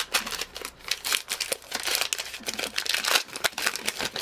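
The foil wrapper of a Topps Gypsy Queen baseball card pack crinkling and tearing as it is ripped open by hand, a dense run of sharp crackles.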